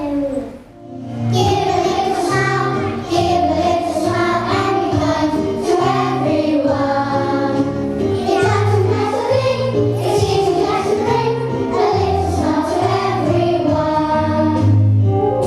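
A group of young children singing a song together over an instrumental accompaniment with a steady bass line; the singing starts about a second in.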